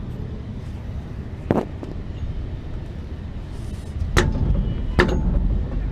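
Three hard metallic blows, an axe striking a wheel seized onto the hub to break it free. The last two are louder and ring briefly, over a low steady rumble.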